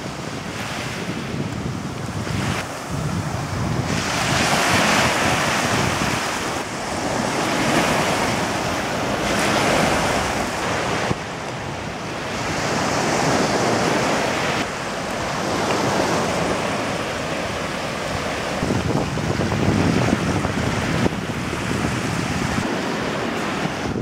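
Ocean waves washing up onto a sandy shore, the hiss of surf swelling and falling back every few seconds, with wind buffeting the microphone.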